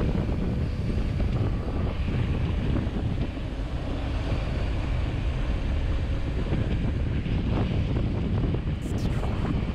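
Wind buffeting the microphone of a camera riding on a mountain bike speeding downhill: a steady low rumble of rushing air.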